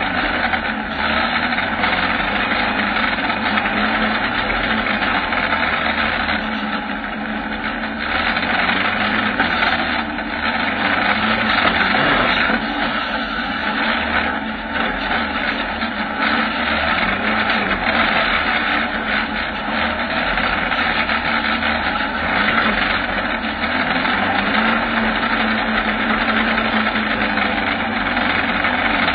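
Kawasaki ZX-9R inline-four motorcycle engine powering a 4x4 buggy, running continuously with its engine speed rising and falling as the buggy is driven over rough ground, heard through a camera mounted on the buggy's frame.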